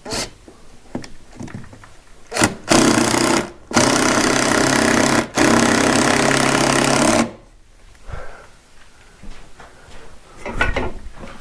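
Handheld power tool running in two bursts, a short one and then one of about three and a half seconds that briefly stutters midway, with a light knock or two before it.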